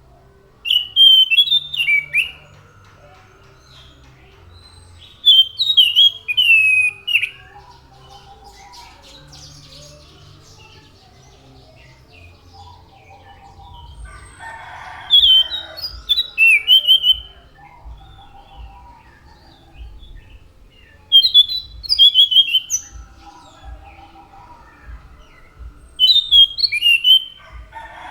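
Anis macan thrush singing: five loud, quick bursts of varied whistled notes, each lasting a second or two and coming every few seconds, with softer bird calls in the gaps.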